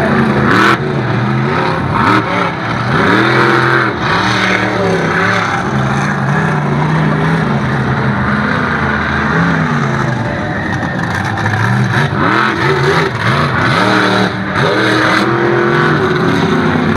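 Monster truck engines revving hard, the pitch climbing and falling over and over as the trucks accelerate and back off.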